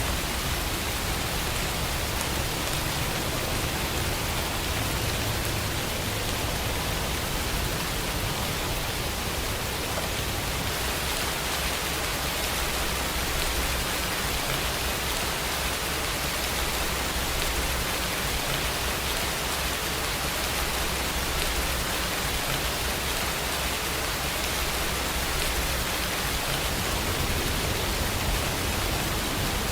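Steady rainfall, an even, unbroken hiss of falling rain.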